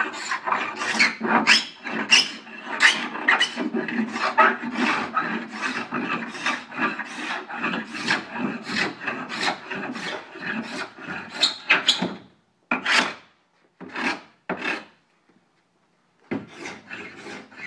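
A freshly sharpened hook-blade scraper being drawn across a hard hickory board in quick repeated strokes, about two a second, cutting well. Near the end the strokes slow to a few separate pulls, stop for about a second and a half, then start again.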